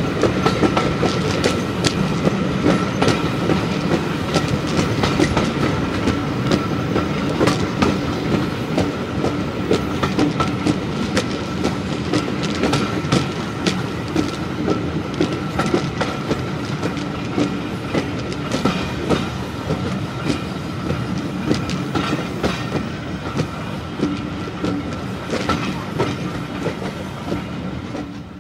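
Passenger coach of a moving steam-hauled train, heard from an open carriage window: a steady rumble of the running train with wheels clicking over rail joints at uneven intervals, and a faint steady hum underneath.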